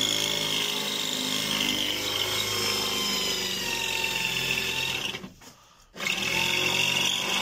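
Electric hand drill running under load as it drills out the head of a stuck steel door-hinge bolt, with a steady whine. The drill stops briefly about five seconds in and then starts again. The drill bit is worn, which the driller calls useless.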